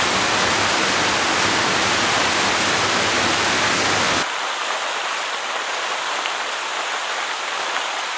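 Steady noise of a tall waterfall's falling water and spray at close range: the first tier of Gocta waterfall. About four seconds in, the sound abruptly becomes a little quieter and loses its low rumble.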